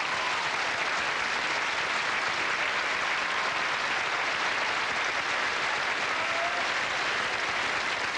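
Large ballroom audience applauding, a steady, even clapping that holds at the same level throughout.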